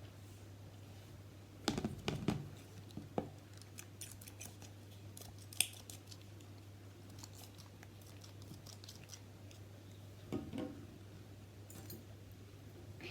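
Scattered clicks and small handling knocks of objects being moved about, in a cluster about two seconds in and again near the end, over a steady low hum.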